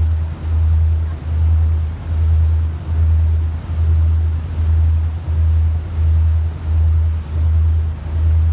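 Motorboat under way: its engine runs with a low throb that swells and fades a little more than once a second, over the rush of water along the hull and wake.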